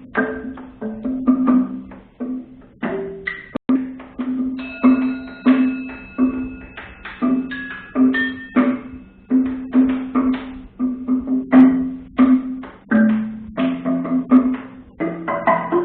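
Percussion music: tuned percussion struck in a rhythm of short, quickly decaying notes, mostly repeating one low note with other pitches in between. A few high ringing tones sustain through the middle.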